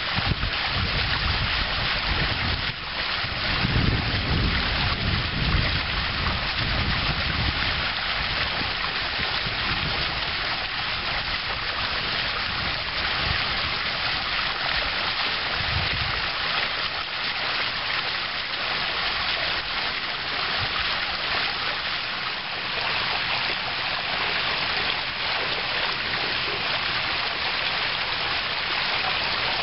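Steady splashing hiss of a water jet pouring into a concrete pool, with wind rumbling on the microphone through roughly the first half.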